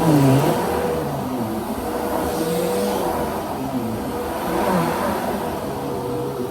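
Bissell PowerForce Helix Rewind Pet upright vacuum cleaner running steadily, its pitch wavering up and down.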